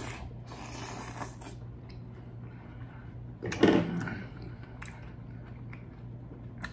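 Close-miked eating sounds: a person slurping and chewing seafood dressed with aguachile sauce, with one louder wet mouthful about three and a half seconds in. A steady low hum runs underneath.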